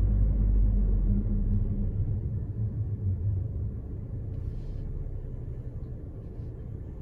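Car being driven: low road and engine rumble with a steady hum, easing off after about two seconds, and a brief hiss about four and a half seconds in.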